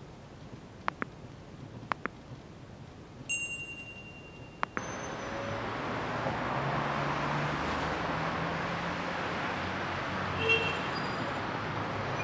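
A few soft clicks and a short bell-like ding from a subscribe-button overlay animation. About five seconds in a steady night-street ambience with a low hum sets in and runs on, with a brief chime near the end.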